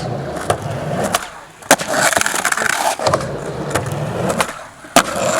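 Wheels rolling over a concrete skatepark, with two sharp loud knocks, one under two seconds in and one near the end, from a trick attempt on a quarter pipe.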